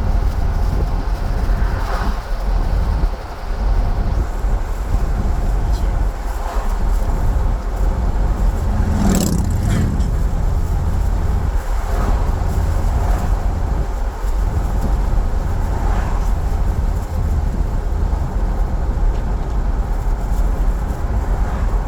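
Steady low rumble of a car on the road, heard from inside the moving car, with a brief louder whoosh about nine seconds in.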